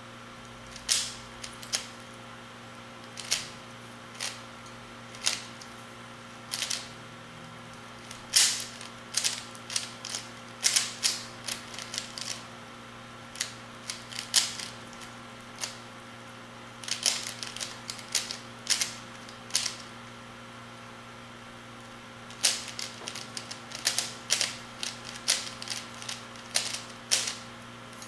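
Plastic Kung Fu Rubik's-type puzzle cube being turned by hand: its layers click and clack in irregular bursts, sometimes several quick turns in a row, with short pauses between.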